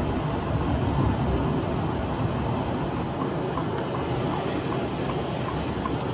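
Steady road and engine noise of a moving car heard from inside, with faint regular ticking starting about halfway.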